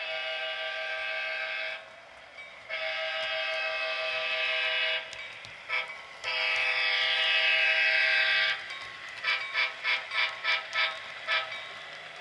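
Model GP7U diesel locomotive's sound-decoder horn sounding a chord through its small onboard speaker. It blows two long blasts, a short one and a long one, the standard grade-crossing signal, then a rapid string of about seven short toots near the end.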